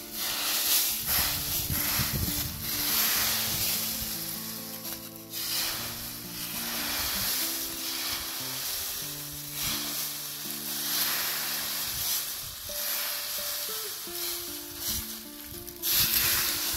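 Short straw broom sweeping dry leaves over bare earth: a scratchy rustle that comes in repeated strokes. Background music with held notes plays underneath.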